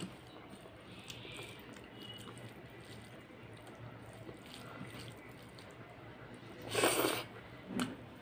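Close-miked wet chewing and mouth sounds of someone eating rice and mutton curry by the mouthful, with soft smacks and clicks. About seven seconds in comes a brief, much louder noisy burst, and a smaller one just after.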